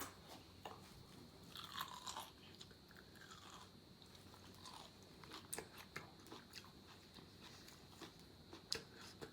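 Close-up crunching as raw cucumber is bitten and chewed: faint, crisp crunches scattered through the whole stretch, with a sharper one near the end.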